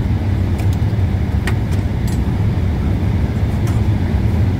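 Steady low rumbling drone of a parked airliner heard from inside the cabin, with a few faint clicks.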